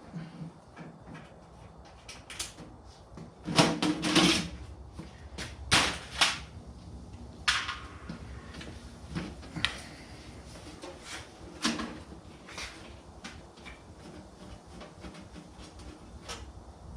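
Desktop computer case being opened and handled: scattered clicks and knocks of metal and plastic parts. A cluster of loud knocks comes about three and a half seconds in, with sharp single knocks near six, seven and a half and twelve seconds.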